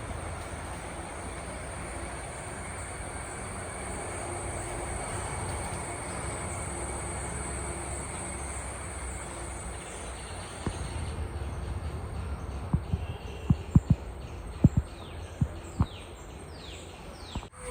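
Outdoor countryside ambience: a steady noisy hiss with a thin high-pitched whine running through it. From about two-thirds of the way in come a scatter of sharp knocks, and birds give quick falling chirps near the end.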